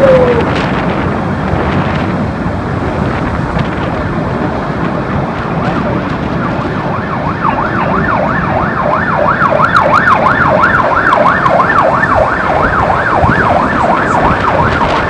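Steady storm wind and rain noise. About seven seconds in, an emergency vehicle's siren starts up in a fast up-and-down yelp, about three sweeps a second, and keeps going.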